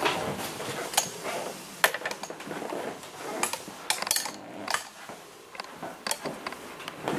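Irregular light clicks and knocks with rustling, the sound of objects being handled and moved about.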